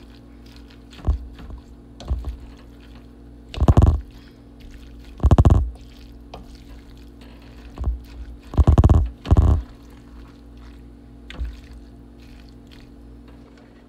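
Wooden spoon stirring and tossing cooked vegetables in a large metal pan: about eight separate short scraping, knocking strokes, the loudest around four, five and nine seconds in, over a steady low hum.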